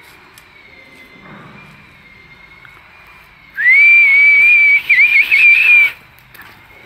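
A loud, high-pitched whistle comes in about three and a half seconds in. It rises quickly to one pitch, wavers and dips a few times, then cuts off after about two seconds. A faint, steady high tone runs beneath throughout.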